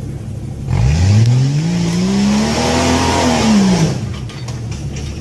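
Off-road Jeep's engine revving hard for about three seconds, its pitch climbing and then falling, over the hiss and scrabble of tyres spinning on rock as it claws up a steep rock ledge. It then drops back to a low rumble, with a few faint knocks near the end as the vehicle tips backward off the ledge.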